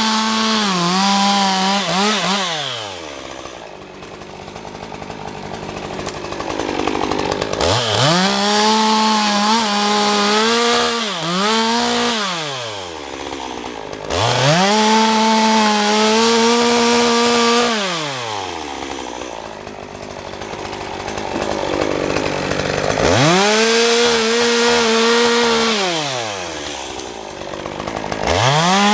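Small chainsaw cutting oak limbs, its chain a little dull: the engine is held at full throttle for several seconds, then drops back to idle between cuts, four times over.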